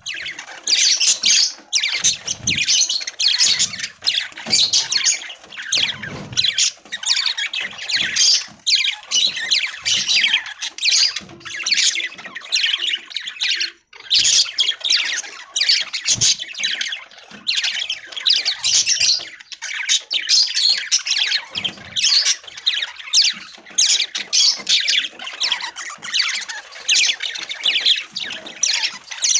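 A flock of budgerigars chattering: many overlapping chirps and squawks, dense and unbroken apart from a couple of brief dips.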